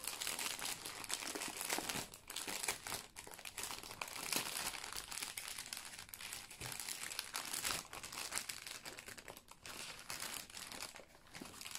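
Clear plastic packaging crinkling and crackling as hands open and handle it, a sleeve packed with small zip-lock bags of diamond-painting drills.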